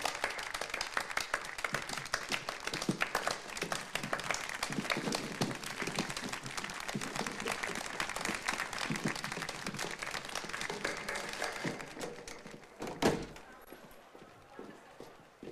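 Audience applauding in a theatre, a dense patter of clapping that fades out about twelve seconds in. A single loud thump follows.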